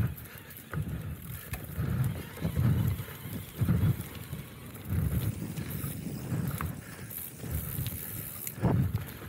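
Mountain bike riding fast down a dirt woodland trail: tyre and trail noise with low thuds from the bumps about every half second to a second, and occasional sharp clicks of the bike rattling.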